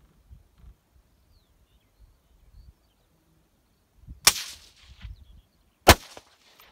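Two sharp, loud cracks about a second and a half apart from a .17 HMR rifle fired without its sound moderator.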